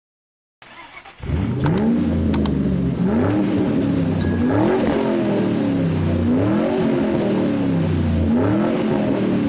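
A car engine revving hard, its pitch climbing and dropping back several times as if running up through the gears, starting about a second in. A few sharp clicks sound over it early on.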